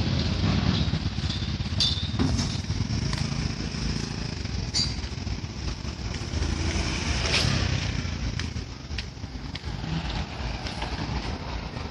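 Street traffic: motorcycle engines running and passing, with a steady low rumble and scattered clicks and knocks.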